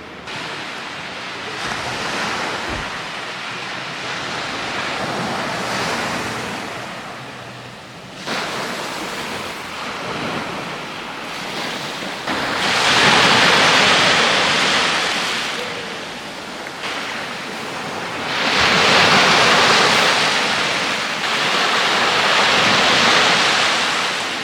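Sea waves breaking and washing onto the shore, the surf swelling and falling back in repeated surges, loudest in two long crashes in the second half.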